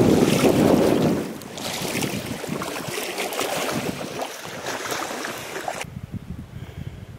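Wind buffeting the camera microphone, with small lake waves washing onto the shore, loudest in the first second. The sound drops at a cut about a second in, and near the end it turns duller as the high hiss cuts off suddenly.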